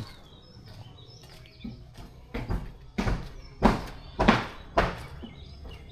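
Footsteps of a person walking, about five steps in an even walking rhythm beginning about two and a half seconds in.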